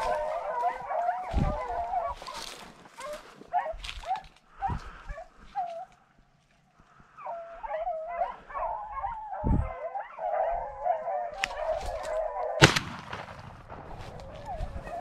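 A pack of rabbit-hunting dogs baying and howling as they run a rabbit's trail, with a brief lull in the middle. A single sharp crack near the end is the loudest sound.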